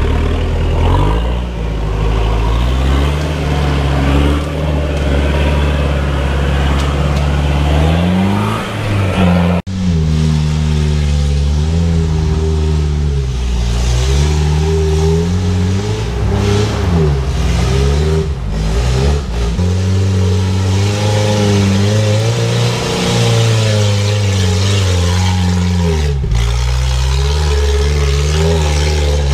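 Off-road 4x4 engines revving as the vehicles climb a muddy slope, the engine note repeatedly rising and falling. The sound breaks off abruptly for an instant about ten seconds in.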